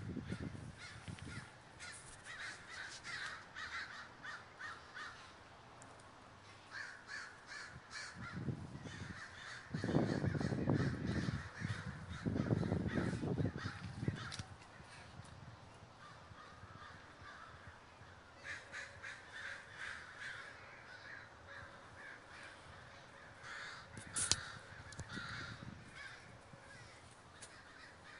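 A large flock of American crows cawing overhead as they gather to roost, with many overlapping caws in irregular clusters. Around the middle, a few low rumbling bursts are louder than the calls.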